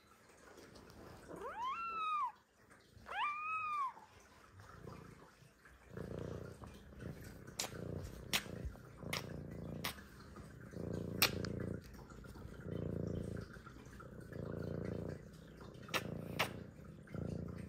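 Domestic cat meowing twice in the first few seconds, each call rising then falling in pitch. Then it purrs steadily, swelling and fading in slow cycles right against the microphone. A few sharp clicks sound over the purring.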